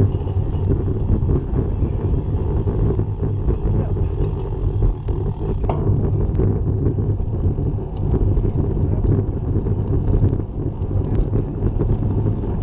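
Wind buffeting the microphone of a camera on a moving bicycle, mixed with the rumble of tyres rolling over grooved concrete. The sound is a steady, low rush.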